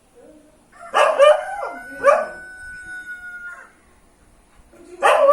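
A dog barking in a friendly way: a quick burst of barks about a second in, a long held note, and more barks near the end.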